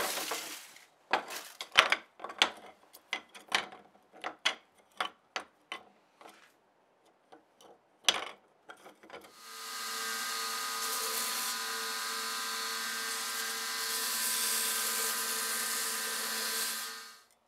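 Aluminium foil crackling and crinkling in irregular bursts as it is pulled off blocks of stabilized walnut. About nine seconds in, a belt grinder starts up and runs steadily with a motor hum and belt hiss, then stops just before the end.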